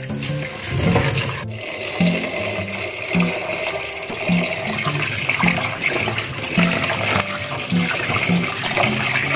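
Tap water running into a metal pot of boiled jengkol beans in a steel sink while a hand rubs the beans to wash them. The tap comes on about a second and a half in, after the beans are tipped into the pot. Soft background music with a regular beat plays underneath.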